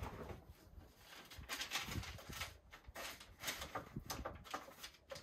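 Irregular rustling and crinkling as gloved hands dip newspaper strips into a foil tray of watered-down PVA glue and slide off the excess, in short bursts of several seconds.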